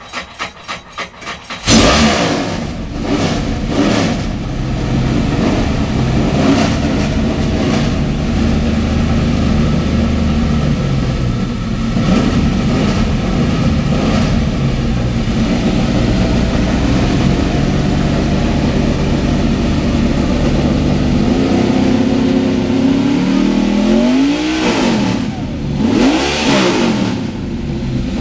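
NASCAR stock car's V8 engine cranking on the starter, catching about two seconds in and roaring to life. It then idles loudly with occasional short blips of the throttle, and near the end is revved up and back down twice.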